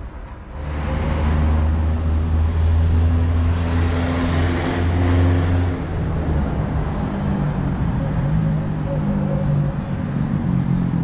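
Road traffic close by: a motor vehicle's engine running with a steady low hum that comes in about a second in, and traffic noise that swells around four to five seconds in.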